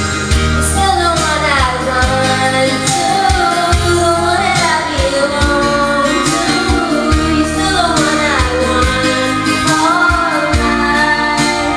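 A singer, probably a woman, sings along to a loud backing track with a heavy bass line. Her long notes slide down in pitch again and again.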